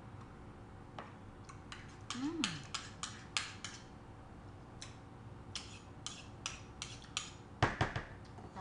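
Serving spoons clicking and tapping against a plastic mixing bowl while a creamy fruit salad is stirred and scooped: scattered sharp clicks, with a louder quick cluster near the end.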